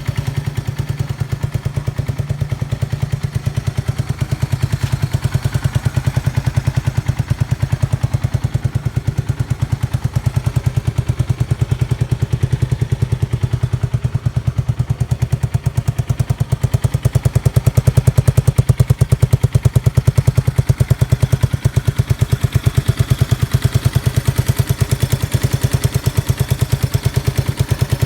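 Yamaha TW200's air-cooled single-cylinder four-stroke engine idling through a 4-inch SuperTrap exhaust, a steady, even run of exhaust pulses that gets a little louder for a few seconds about 17 seconds in. It runs with no abnormal noises.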